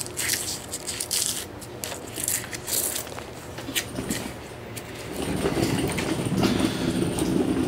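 Scraping and crackling of rusty sheet metal and flaking undercoating being handled, then a louder low rumble from about five seconds in.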